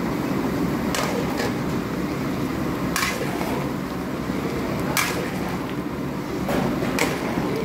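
A spatula stirring a large metal paella pan of simmering rice, scraping and knocking against the pan with about six sharp clacks at irregular intervals, over a steady rushing background noise.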